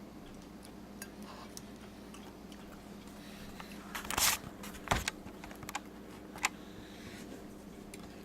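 Microwave oven running with a steady hum, broken by a burst of crackling and sharp pops about four to five seconds in and a few single clicks after, as the plasma inside the oven flares.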